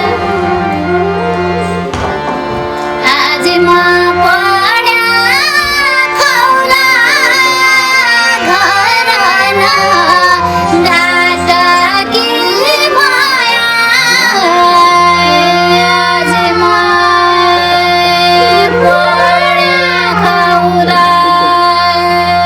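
Music: a female voice singing ornamented, gliding runs over a steady held accompaniment tone, in a live Nepali song.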